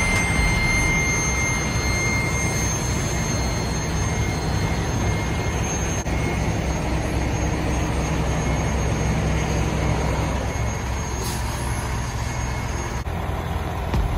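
A Kenworth semi truck's diesel engine runs steadily as the tractor-trailer moves slowly past at low speed, giving a steady low rumble.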